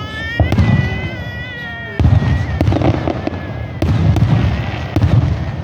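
Fireworks going off: a high, slightly wavering whistle over the first two seconds, then several bursts with low booms and crackle, about two, four and five seconds in.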